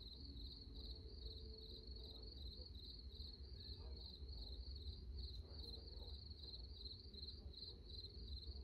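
Crickets chirping steadily, a high-pitched chirp repeated about three times a second, over a low steady rumble.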